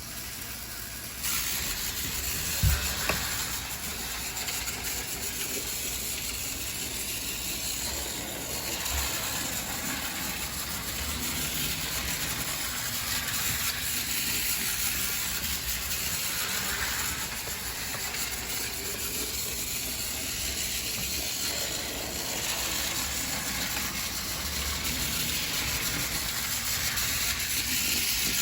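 Trackmaster battery-powered toy train running at 3 volts, its small electric motor and gears whirring steadily. It gets louder about a second in, and there is a sharp knock a couple of seconds later.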